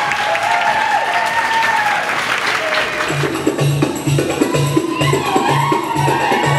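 Belly dance music playing with applause from the audience; about three seconds in, a new track starts with a steady drum beat of about two strokes a second.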